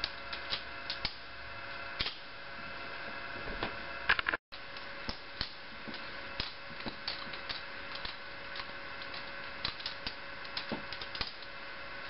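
Balisong (butterfly knife) handles clicking and clacking against each other and the blade as the knife is flipped and rolled around the fingers. The clicks come irregularly and quickly, with a louder clatter of several clicks about four seconds in.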